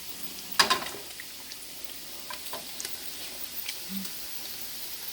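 Pork cubes in oil sizzling faintly as a steady hiss, with one sharp knock about half a second in and a few light clicks after it.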